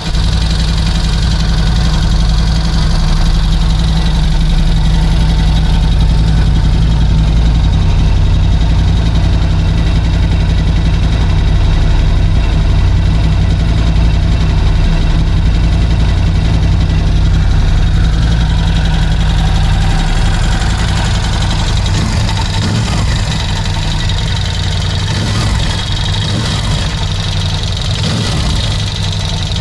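Ducati Scrambler 1100 Special's air-cooled L-twin engine running steadily at idle, with the knock of piston slap in its horizontal cylinder, a sign of a worn piston and bore.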